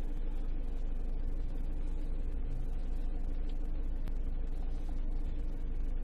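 A campervan's engine running at or near idle, heard from inside the cab as a steady, even hum while the van barely moves in slow traffic.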